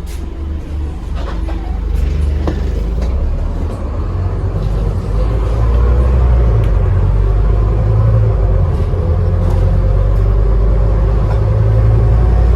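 Scania Enviro 400 double-decker bus engine rumbling as the bus pulls away and gathers speed, getting louder, with a turbo whistle climbing slowly in pitch from about five seconds in. A few light clicks and knocks come in the first couple of seconds.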